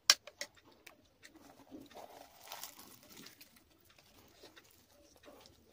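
A metal spoon clinks sharply once against the sabji bowl as it is set down. A couple of seconds later comes a crackly rustle of a deep-fried puri being torn apart by hand, among small clicks.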